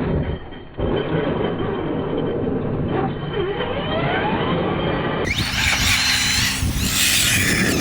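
Radio-controlled car driving, its electric motor whining up and down in pitch over the noise of its tyres and running gear. About five seconds in the sound changes abruptly and becomes brighter.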